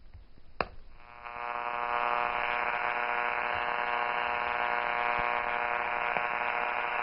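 A small vintage portable radio clicks on about half a second in, then gives a steady buzzing hum from its speaker that swells over the next second and then holds level.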